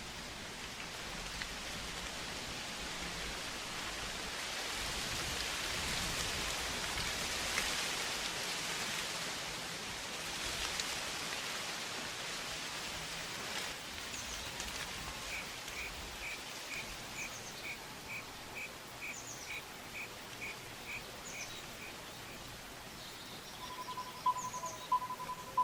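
Outdoor nature ambience: a steady rushing hiss that swells and fades in the first half. Through the middle a bird repeats a short high call about twice a second, with fainter chirps above it. A lower, pulsing whistle begins near the end.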